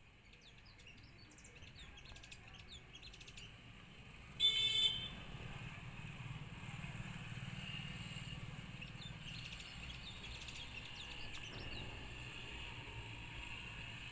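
A sunbird gives rapid, thin, high chirps in two clusters, one near the start and another past the middle. A short vehicle horn sounds once, about four and a half seconds in, as the loudest event, over a low traffic rumble.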